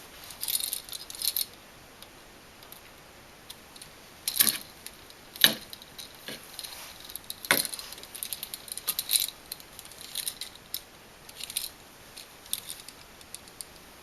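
Light clicks, clinks and rattles of electrical wall outlets and wire being handled while a stripped jumper wire is pushed into the back of a receptacle. Three sharper clicks stand out, about four and a half, five and a half and seven and a half seconds in.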